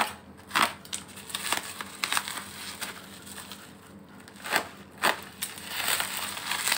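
Plastic packaging and bubble wrap crinkling and rustling as hands unwrap a parcel, with irregular sharp crackles.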